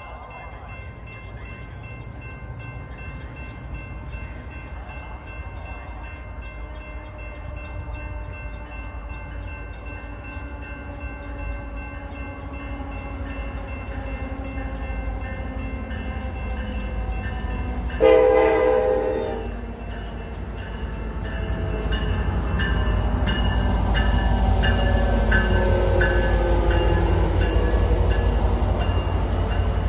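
Metra commuter train's diesel locomotive approaching and drawing level. Its low engine rumble grows louder throughout, and it gives one short, loud horn blast about eighteen seconds in.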